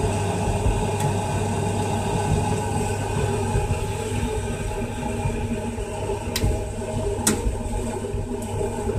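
Scharpf (Merloni) front-loading washing machine running a cottons 80 °C program, its drum turning with laundry over a steady motor hum. Two sharp clicks come about two-thirds of the way through.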